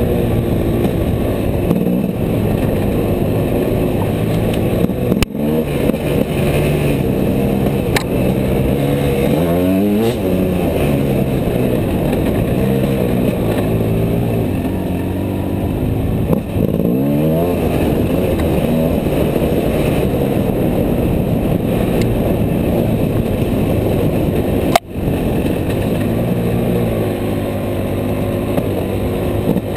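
2010 Gas Gas EC enduro motorcycle engine running under load on a trail ride. Its pitch rises and falls repeatedly as the throttle opens and closes and the gears change.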